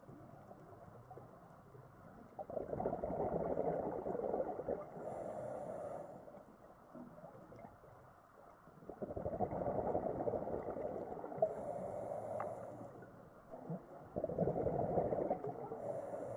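Scuba diver breathing through a regulator underwater: three long bursts of exhaled bubbles gurgling, with quieter pauses between breaths.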